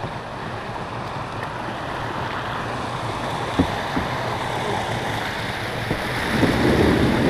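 River water rushing through a small weir chute, an even rushing noise that grows slowly louder, with two light knocks a little past the middle.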